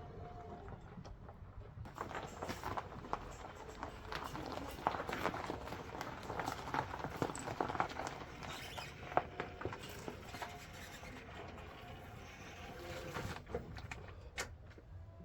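Goats moving about and feeding on hay: a dense run of irregular hoof clicks and rustling that thins out near the end.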